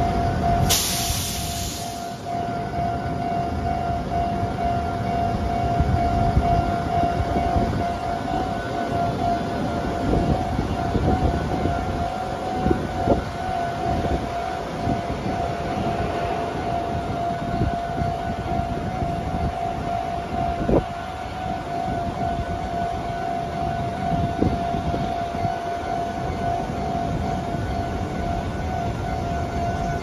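Japanese railway level-crossing warning bell ringing steadily with its repeating electronic ding, barriers down while no train passes. Road traffic rumbles underneath, with a short loud hiss about a second in.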